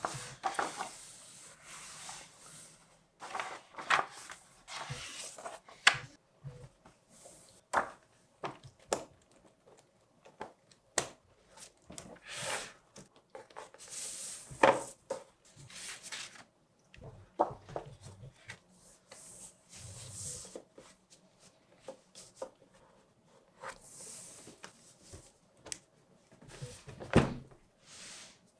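Thick card covers and paper sheets handled by hand: irregular rustling and sliding, with a few soft knocks as the card is set down or lifted.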